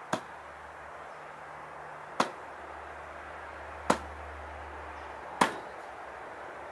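Four sharp knocks of iron training weights being handled, spaced about one and a half to two seconds apart, each ringing briefly.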